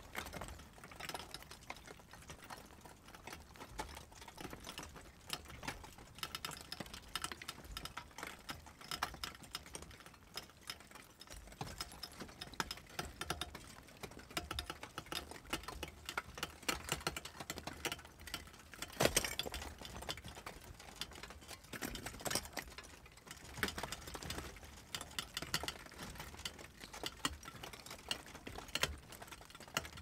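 Slow-moving lava front crackling and clinking: a dense, irregular run of small clicks and ticks as its crust cracks and glowing chunks shift and tumble, with a louder crack about 19 seconds in.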